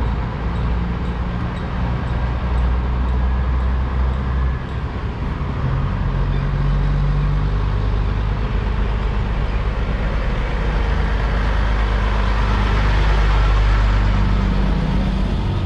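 Diesel semi truck pulling an end-dump trailer, engine running as it drives up and passes close by, getting louder and loudest near the end as it goes past.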